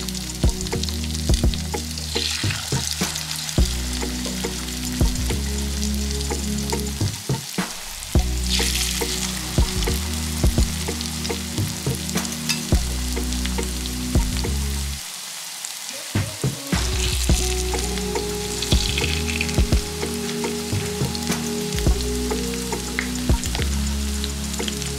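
Grated-potato pancakes sizzling and crackling in hot oil in a frying pan, with background music underneath that drops out briefly about fifteen seconds in.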